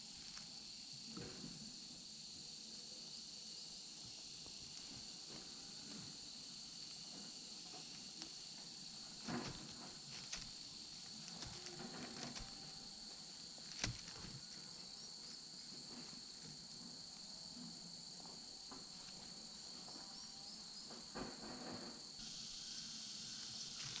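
Steady high-pitched chorus of insects, growing louder near the end. Now and then there are short knocks and rustles of sticks and leaves as the eaglet shifts its weight on the nest.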